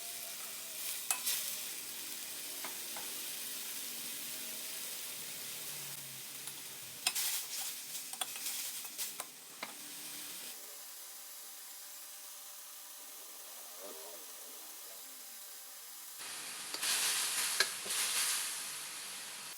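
Spicy beef with holy basil stir-frying in a hot pan: a steady sizzle, broken by bursts of spatula scraping and clatter about a second in, through the middle, and near the end.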